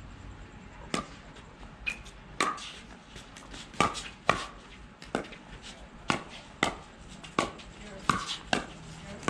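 A doubles pickleball rally: paddles strike the plastic ball with sharp, hollow pops, about ten in all at uneven gaps of half a second to a second and a half.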